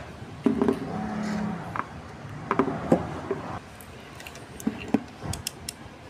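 Scattered clicks and light knocks of hands handling a motorcycle battery and multimeter on a workbench, with a brief low hum about a second in.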